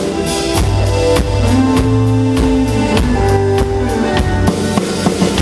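Rock band playing an instrumental passage live: a drum kit keeps a steady beat under sustained electric bass notes and other pitched instruments.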